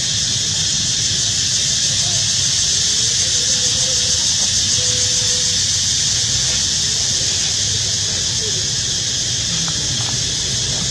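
A steady, high-pitched hiss throughout, with faint thin squeals from a newborn macaque about two to five seconds in.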